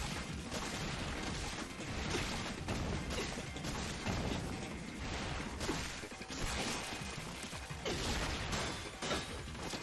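Anime fight-scene sound effects: a dense run of mechanical clanking and impacts.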